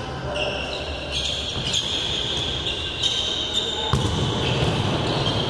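Futsal game on an indoor court: players' shoes squeaking on the hard floor several times and the ball struck once with a sharp knock about four seconds in, echoing in the large hall.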